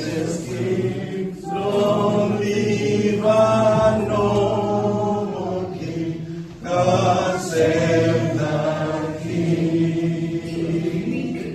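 A group of voices chanting together in song, in short phrases over steady held low notes.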